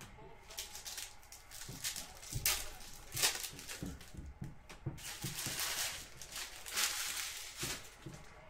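Basketball trading-card packs being torn open and handled, their wrappers crinkling and rustling in several short rushes, with light knocks of cards and packs between them.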